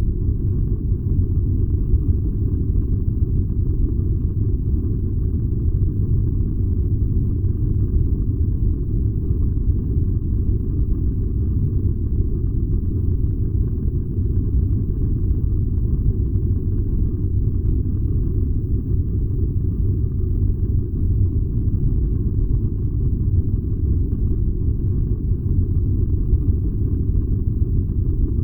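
Furnace burning with a steady, unbroken low rumble.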